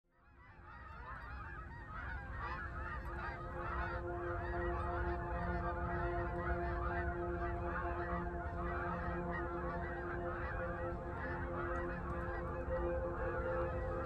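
A large flock of geese honking in flight, many calls overlapping into a continuous clamour. It fades in from silence over the first second or two.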